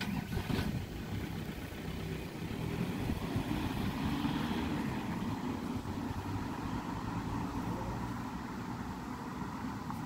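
A saloon car pulling away from a standstill at a traffic light and driving off down the road, with engine and tyre noise.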